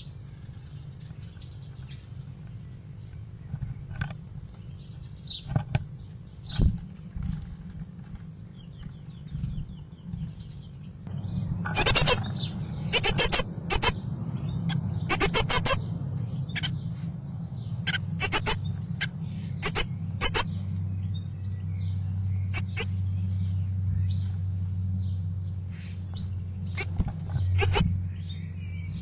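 Great tits calling at a nest box: scattered chirps and sharp ticks, with bursts of rapid ticking that are loudest between about twelve and sixteen seconds in. A low steady hum runs beneath.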